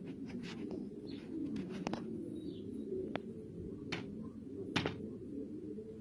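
A flock of domestic pigeons cooing over one another in a continuous low chorus, with a few sharp clicks scattered through it, the loudest a little before five seconds in.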